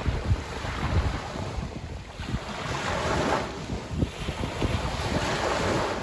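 Small Black Sea waves breaking and washing up a pebble beach, with one surge of surf about three seconds in and another near the end. Wind buffets the microphone with a low rumble.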